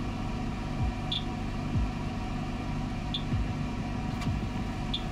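K40 CO2 laser cutter running during a laser burst, a steady mechanical hum with a low rumble. Three faint short high blips come at about two-second intervals. The Geiger counter beside it picks up no radiation.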